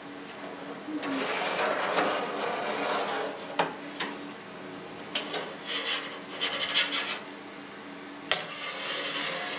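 Stainless-steel wire cheese harp scraping and clicking against the walls of a stainless-steel vat as it is drawn through firm curd, cutting it horizontally into cubes. A stretch of scraping is followed by a series of sharp clicks and short scrapes, with one louder click near the end.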